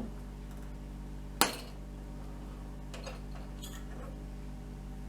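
A sharp metallic clink about a second and a half in, then two fainter clinks, from hand work with a tool on a VW Beetle's front turn signal housing and its stuck, corroded bulb. A steady low hum runs underneath.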